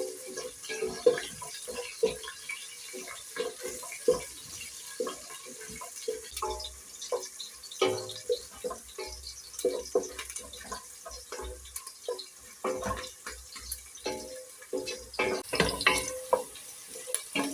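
Chopped onions, carrots and green peppers frying in oil in a pot, with a steady sizzle and a spoon knocking and scraping against the pot at irregular moments as they are stirred.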